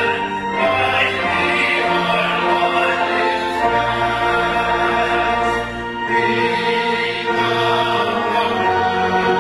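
A small worship team singing a hymn together into microphones over instrumental accompaniment, with long held notes and steady low chords that change every second or two.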